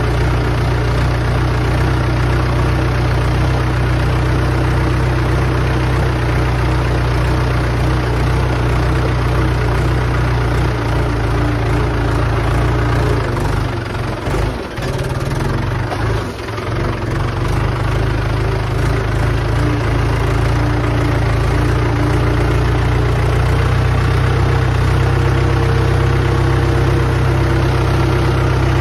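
Mahindra 415 DI XP Plus tractor's 42 hp diesel engine running steadily as the tractor drives through flooded mud, with water splashing off the front wheels. The engine sound dips briefly around the middle, then steadies again.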